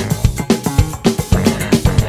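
Acoustic drum kit with Paiste cymbals played live along to a funk recording, a busy, steady groove of sharp drum and cymbal hits over bass and guitar.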